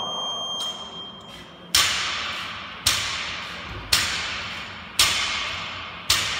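A gym interval timer's long start beep, ending just under a second in. Then a barbell loaded with 20 kg bumper plates hits the floor five times, about once a second, as reps are done at speed, each thud trailing off over about a second.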